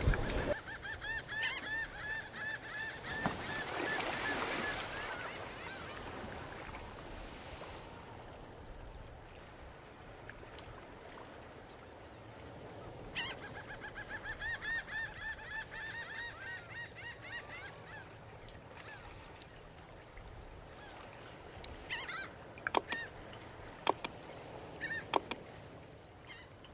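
Birds giving rapid runs of honking calls in two long bouts, over a faint steady hiss. A few sharp clicks come near the end.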